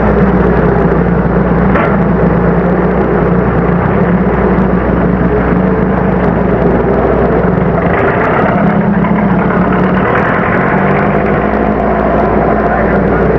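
Semi-truck engine running steadily, its note dipping and then picking up again about eight seconds in, over a constant low hum.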